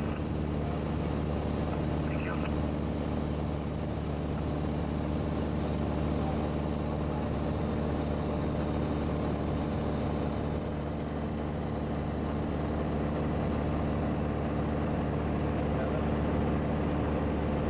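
Piper light aircraft's piston engine and propeller droning steadily at cruise, heard from inside the cabin, with a constant low hum and no change in pitch.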